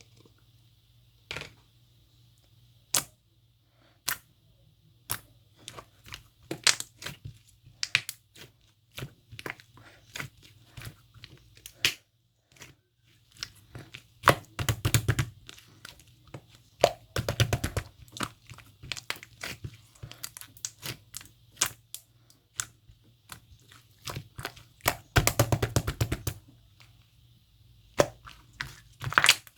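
Paper or plastic being handled at close range: scattered sharp clicks and taps, with three short spells of rapid crinkling and tearing.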